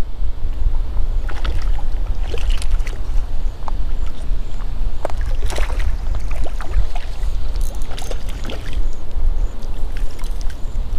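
Wind buffeting the microphone, a steady low rumble that swells and drops, with scattered light clicks and rustles.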